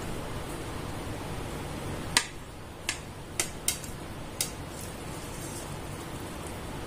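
A serrated knife cutting through a crisp, many-layered chatti pathiri on a plastic plate: five sharp clicks in the middle, the first the loudest, over a steady low hiss.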